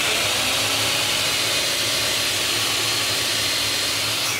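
Bosch 12-inch axial glide miter saw's motor running free at full speed, a steady whine with no wood being cut. It is switched off right at the end.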